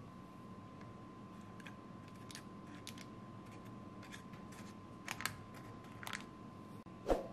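Soft clicks and taps of a silicone spatula pressing blueberries into cake batter in a baking tray, over a faint steady hum. A few faint taps come first, louder ones about five and six seconds in, and a fuller knock shortly before the end.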